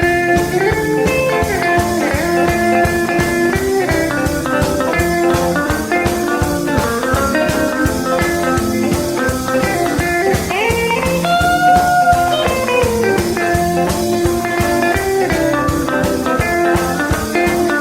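Instrumental break of a bluesy rock song: electric guitar playing a lead with bent notes over a steady drum beat.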